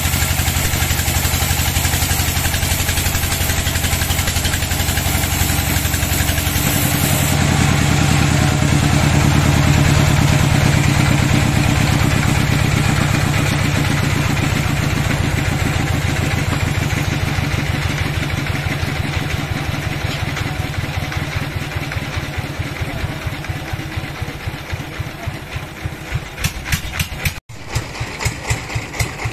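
Sawmill band saw cutting through a teak log, a steady hiss of blade in wood that ends about seven seconds in. The machinery then keeps running unloaded, with an even, rhythmic low thumping that grows more distinct toward the end.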